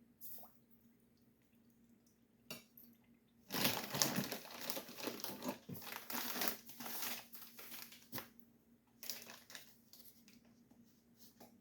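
Crinkling of a bag of raw cane sugar as sugar is scooped out with a measuring cup, with a couple of light knocks first and a busy stretch of rustling and scraping in the middle.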